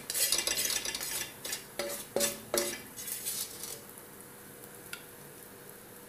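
Kitchen utensils scraping and clinking against cookware in a run of quick scrapes for about four seconds, with a few short ringing clinks about two seconds in. A single small click follows near the five-second mark.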